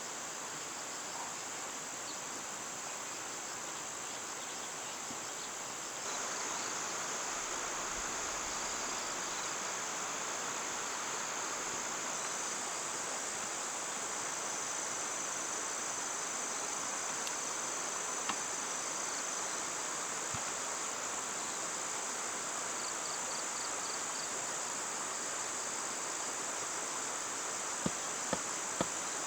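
A steady, high-pitched chorus of insects shrilling continuously, with a few light knocks near the end.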